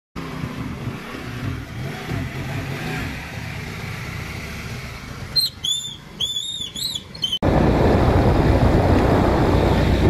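A small motor scooter engine runs with a low, wavering hum. A run of high, rising-and-falling chirps follows. It then cuts abruptly to loud wind rushing over the microphone as the scooter rides along.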